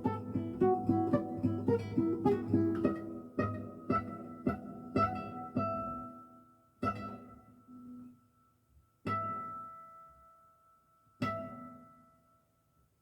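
Classical guitar playing the closing bars: a run of quick plucked notes slows into a few single notes and chords, each left to ring out and fade away.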